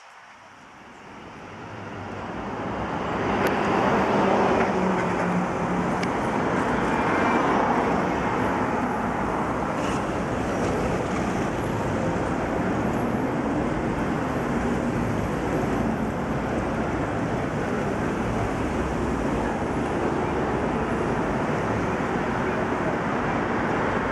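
Steady city traffic noise, a broad rumble and hiss, swelling up over the first few seconds and then holding even.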